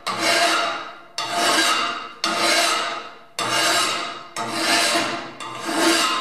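Hand file stroked across metal held in a bench vise: six even rasping strokes about a second apart, each starting sharply and fading as the stroke runs out.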